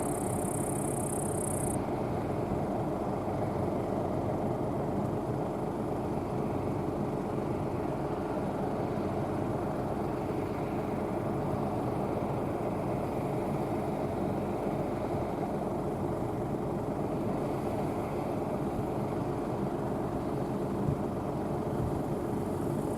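Rostselmash NIVA SK-5 M1 combine harvester running steadily while harvesting barley: a continuous engine and machinery drone with several steady hum tones. A high hiss joins it for the first second or two.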